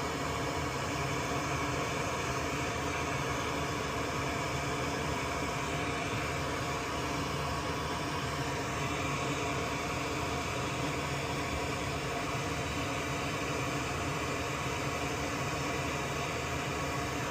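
Steady blowing hiss of a fan-driven blower on an electronics repair bench, even in level throughout, with faint steady hum tones beneath it.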